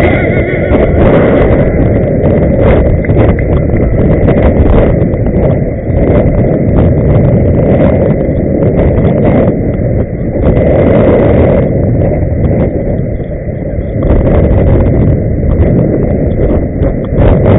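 Loud, steady rumble of wind and rolling noise on the microphone of a camera carried while inline skating, strongest in the low range, dipping briefly a few times.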